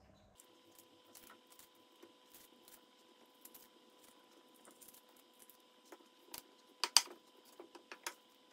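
Hands tearing open sweet peppers and picking out the cores and seeds on a wooden cutting board: faint crackles and small clicks, with a few sharper snaps near the end.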